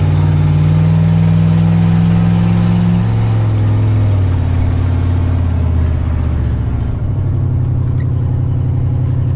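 Big-block Chevrolet V8 of a motorhome running loud, heard from inside the cab; its drone steps down in pitch about three seconds in. The loudness comes from a leaking exhaust donut gasket that the owner is setting out to repair.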